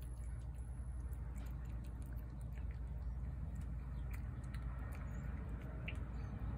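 A cat eating from a plate, chewing and crunching dry food in scattered small clicks, over a steady low background rumble.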